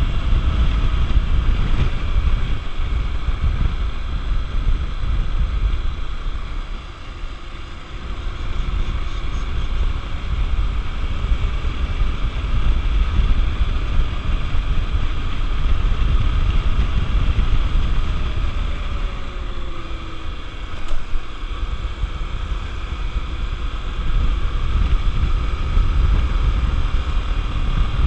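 Wind buffeting the microphone while riding a Honda XR 250 Tornado motorcycle, its single-cylinder four-stroke engine running underneath. The rush drops briefly about seven seconds in.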